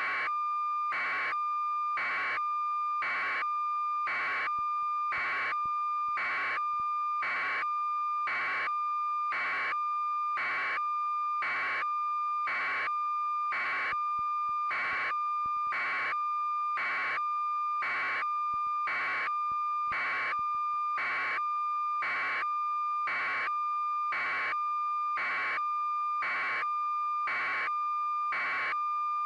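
An electronic beep repeating evenly about once a second over a continuous high-pitched tone.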